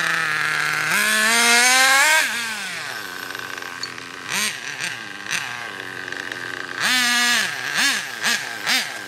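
Nitro-powered OFNA Ultra LX Comp RC buggy's small glow engine revving: a rising whine about a second in that falls back to idle, then a longer burst of throttle about three quarters through and several quick throttle blips near the end.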